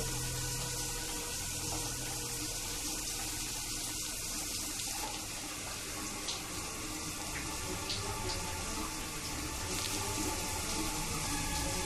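Shower running: water spraying steadily from a showerhead onto a person and the stall.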